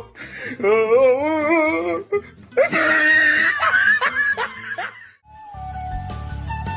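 Laughing vocal sounds with a wavering, wobbling pitch, then a background tune with a flute melody over a steady beat comes in about five and a half seconds in.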